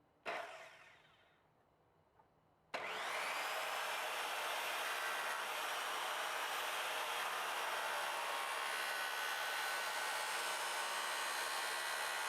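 Electric miter saw with a compound blade switched on about three seconds in: the motor whines up to speed and then runs steadily. Just before it, a brief sharp sound fades away over about a second.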